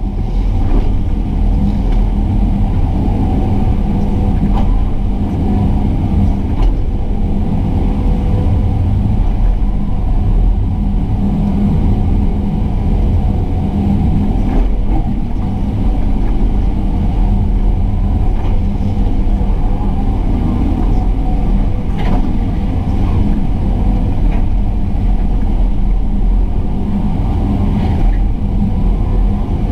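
Excavator's diesel engine running steadily at working speed, with a deep rumble and a few faint knocks from the machine's work.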